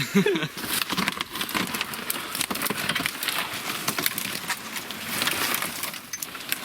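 Willow brush crackling and snapping in a rapid, irregular patter as a loaded sled is hauled through it.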